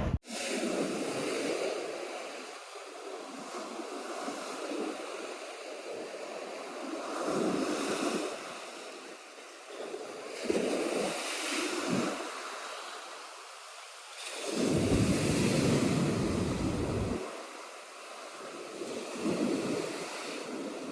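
Sea surf breaking and washing up the shore, swelling and fading every few seconds, with wind buffeting the microphone on the bigger swells.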